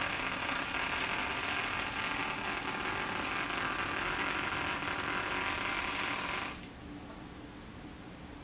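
HexBug Mouse robotic cat toy's small motor whirring as it scurries around inside a plastic basket, then stopping about six and a half seconds in.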